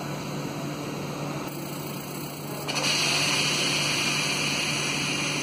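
Low steady hum, then about two and a half seconds in a sudden loud, steady hiss of compressed air as the Siemens SIPART PS2 positioner moves the control valve's pneumatic actuator in response to a stepped-down milliamp signal.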